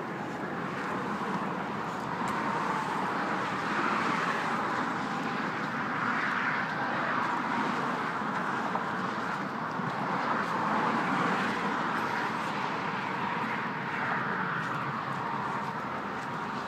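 Road traffic passing close by: a steady rush of car tyre and engine noise that swells and fades several times as vehicles go past.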